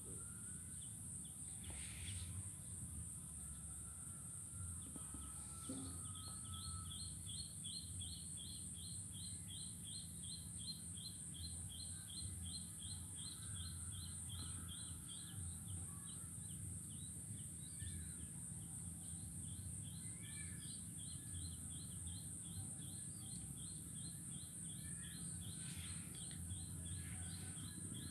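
Faint rural outdoor ambience: a steady high-pitched insect drone, and from about six seconds in a chirping call repeating quickly, about three times a second, over a low background rumble.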